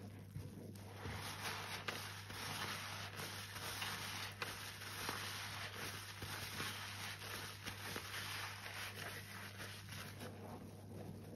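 A soapy sponge squeezed and worked by rubber-gloved hands in a sink of water: wet squelching and the fizz of suds, louder from about a second in, with a few faint clicks.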